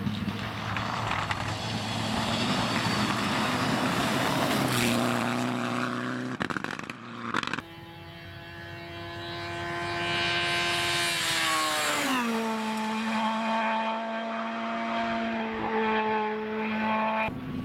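Rally car engines at high revs on a special stage. The first car passes with a dense rush of engine and road noise and a few sharp cracks. After a cut, another car runs with a steady high engine note that drops sharply in pitch about twelve seconds in as the revs fall for a bend, then holds a lower note.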